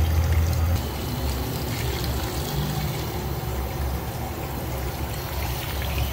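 Kitchen tap running, its stream splashing over octopus tentacles and into a metal colander in the sink as the salt is rinsed off.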